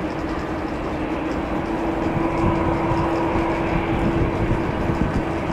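Airbus A350-900's Rolls-Royce Trent XWB turbofan engines running as the airliner rolls slowly along the runway: a steady jet rumble with a constant low hum, growing a little louder about two seconds in.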